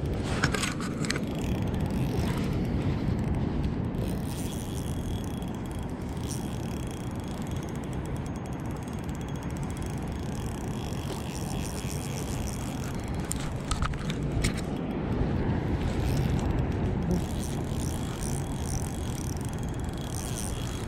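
Steady low rumble of wind on a body-worn camera microphone, with a few short clicks and rattles from a spinning reel being worked, once about half a second in and again around fourteen seconds.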